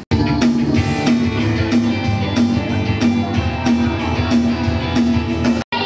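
Music with a steady repeating beat. It starts abruptly and drops out for a moment near the end.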